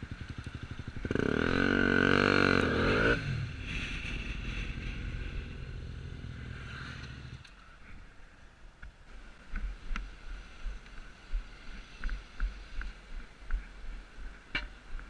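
Motorcycle engine pulling hard for about two seconds, then running on more steadily at a lower level. About halfway through it drops away abruptly to quiet low thumps with a few faint clicks.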